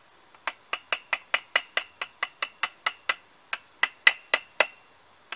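Light, quick metal-on-metal taps, about five a second, of a screwdriver on the crankshaft end of a Stihl 032 AV chainsaw, working the woodruff key into its keyway. Each tap rings briefly; the tapping stops for a moment near the end and then starts again.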